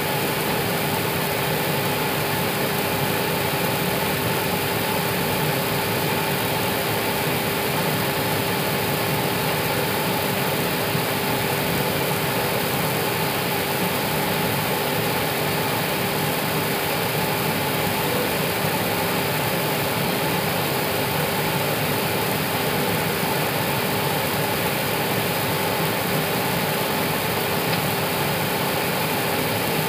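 Airbus A320 heard from inside the cockpit while taxiing with its engines at idle: a steady, even rushing hiss with a constant humming tone underneath.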